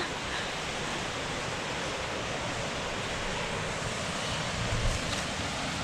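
Steady rushing of a small woodland waterfall and creek, an even hiss without a break.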